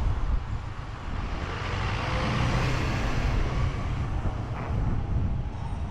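Wind buffeting the microphone of a rider on the move, a steady low rumble, with a broad rushing noise that swells and fades about midway.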